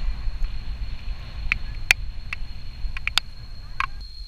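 Wind buffeting the microphone and road rumble on a mountain-bike ride, with a steady thin high tone. Several sharp clicks and rattles from the bike come between about the middle and near the end.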